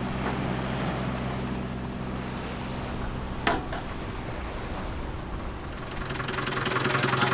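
A sailboat's inboard engine running with a steady hum. There is one sharp click about three and a half seconds in, and the engine's clatter grows louder near the end.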